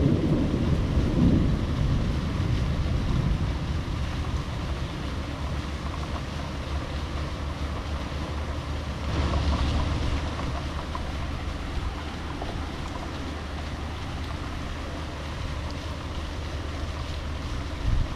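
A roll of thunder dies away over the first couple of seconds, leaving the steady noise of heavy rain and wind buffeting the microphone. About nine seconds in, the rain and wind briefly swell louder.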